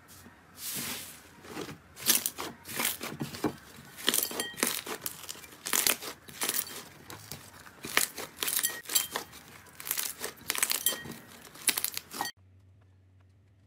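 A pink-and-white inflated slime squished and kneaded by hand, giving irregular bursts of crinkly crackling and popping. The sound cuts off suddenly near the end.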